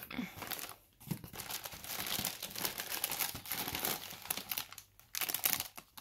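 Inflatable plastic air-column packaging crinkling and rustling as it is handled and opened, with a short lull just before the end.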